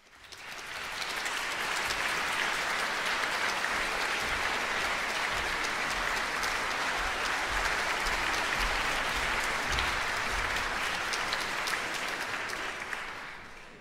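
Audience applause in a large opera house auditorium: a dense, steady clapping that swells in over the first second or two and dies away near the end.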